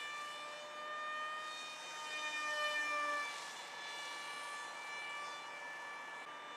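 Radio-controlled model Alpha Jet flying overhead, its engine giving a steady high-pitched whine that swells loudest as it passes nearest, about two and a half to three seconds in.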